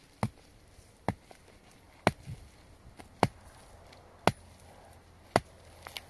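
Six sharp, evenly spaced strikes, about one a second, with a few fainter knocks between them.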